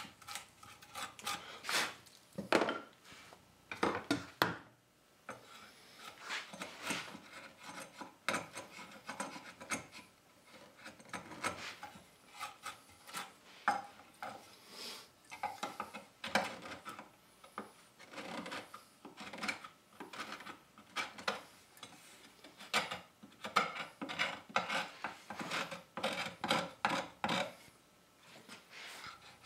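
Wood-carving gouge scooping out the bowl of a wooden spoon: a run of short scraping cuts into the wood, about one or two a second, uneven in strength.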